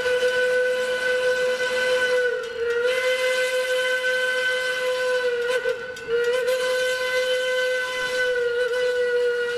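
Steam whistle of Santa Cruz Portland Cement #2, blown as long blasts on one steady note with short dips about two and a half and six seconds in, as the locomotive approaches a grade crossing.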